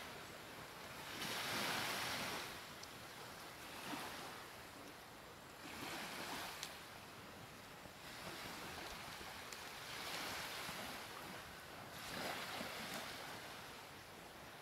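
Ocean surf breaking and washing up the shore, swelling and falling away about four times, a few seconds apart.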